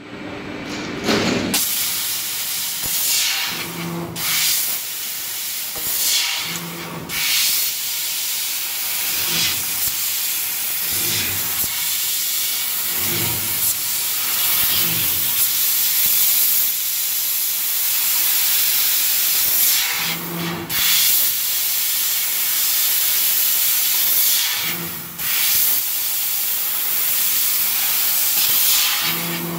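Fiber laser tube cutting machine cutting a rectangular steel tube: a steady loud hiss from the cutting head, broken every few seconds by short louder surges with a low hum.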